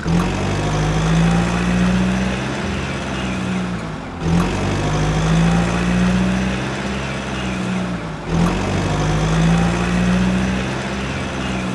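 Truck engine sound effect for a toy tanker truck, running steadily and repeating in a loop about every four seconds, with a short break between repeats.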